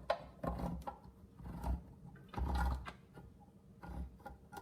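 Hand-operated can opener cutting around the lid of a tuna tin in a series of short, uneven mechanical strokes.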